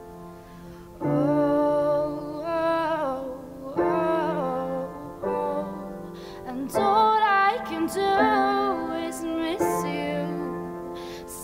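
Slow solo piano and female vocal ballad, played on a J.L. Duysen piano. For about the first second only the piano's held chord is heard as it fades. Then a woman's voice comes in, singing long phrases that glide between held notes over sustained piano chords.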